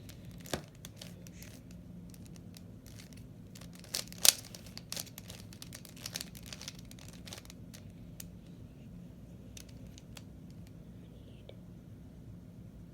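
A plastic 3x3 Rubik's Cube's layers being twisted: an irregular run of short clicks and clacks, the loudest about four seconds in, over a faint steady low hum.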